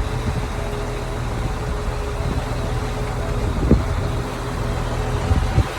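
Large diesel engine running steadily, a low rumble with a constant hum, with wind gusting on the microphone. Two short knocks, one a little past halfway and one near the end.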